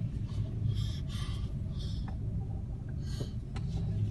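Low, steady rumble of a car heard from inside the cabin as it drives slowly, with a few short breathy hisses on top.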